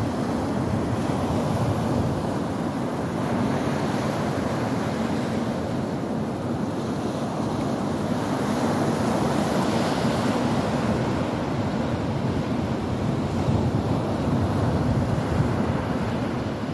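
Sea waves washing onto the shore: a continuous rush of surf that swells and eases gently.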